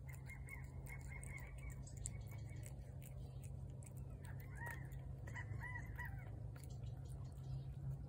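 Birds calling: a quick run of high notes in the first two seconds or so, then about five short arched calls around the middle, over a steady low hum.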